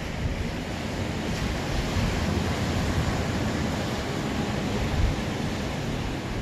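Ocean surf washing in as a steady hiss, with wind rumbling on the microphone.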